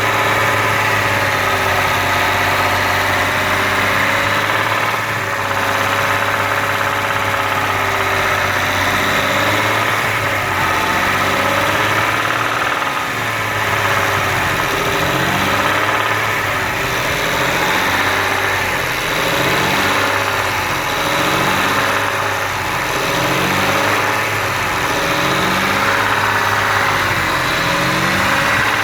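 BMW N54 twin-turbo straight-six engine running, its pitch swelling gently up and down about every two seconds.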